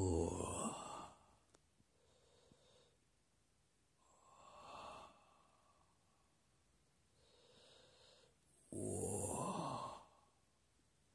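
A man's heavy breathing close to the microphone: loud, drawn-out sighing exhales about a second long at the start and again near the end, with fainter breaths every two to three seconds in between.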